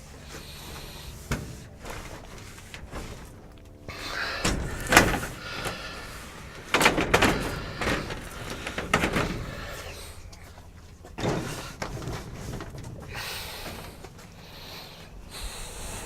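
Irregular knocks, thumps and short scrapes from handling and cleaning a greenhouse's glass and frame. The loudest knocks come about five and seven seconds in, with more around nine and eleven seconds.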